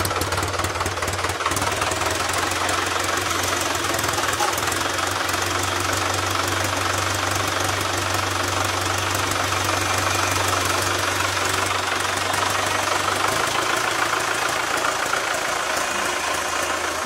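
Vintage blue Fordson tractor's engine idling steadily with an even clatter. Its low note shifts slightly about three-quarters of the way through.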